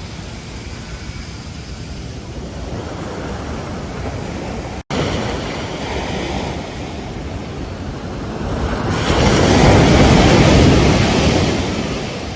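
Ocean surf: a steady wash of waves, with one wave breaking louder from about two thirds of the way through and fading toward the end. A split-second gap in the sound comes about five seconds in.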